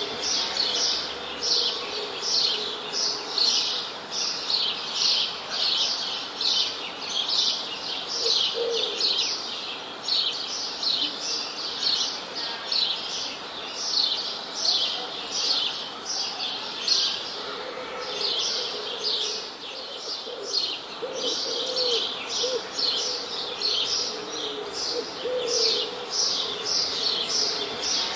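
Small songbirds chirping, a dense run of short high chirps several a second that thins for a moment about two-thirds through, over a faint steady low tone.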